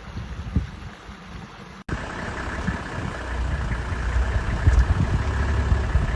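A vehicle engine idling with a steady low rumble, starting abruptly at a cut about two seconds in; before that, only quieter low background noise.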